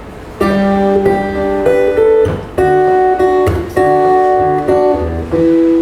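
Acoustic guitar playing a strummed intro, the first chords coming in about half a second in and changing every second or so.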